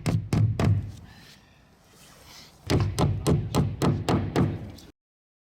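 Quick series of sharp knocks from a tool striking against the wall sheathing: a few blows at the start, then after a short pause about seven more, roughly three a second. The sound cuts off abruptly near the end.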